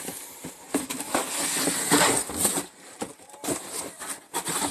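A cardboard shoebox being handled and moved: irregular scraping and rubbing with light knocks, and a longer scrape from about a second in.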